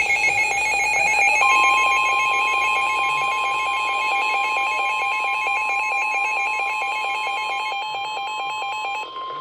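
Weather radio alert alarm: an electronic tone rapidly alternating between two pitches. About a second and a half in, the steady NOAA Weather Radio 1050 Hz warning tone joins it. The alternating alarm cuts off near the end while the steady tone carries on, signalling that a warning broadcast is about to be read.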